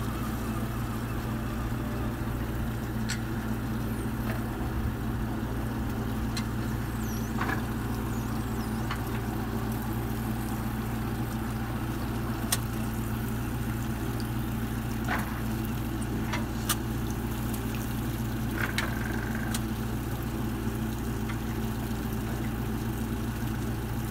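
Twin outboard engines of an RNLI Atlantic 85 inshore lifeboat running steadily at low revs, holding the boat in its recovery cradle. A few light knocks sound over the engine hum.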